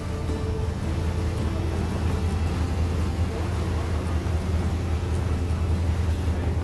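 Dive boat's engines droning steadily under way, with the rush of water churning along the hull.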